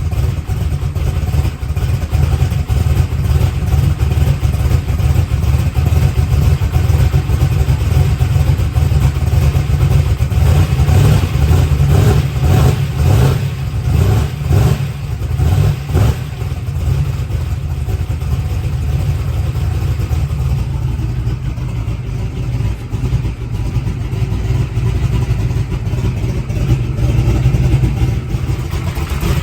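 Boosted small-block Chevy drag-race engine running loud and steady at a cold idle, with a stretch of sharper pulses around the middle.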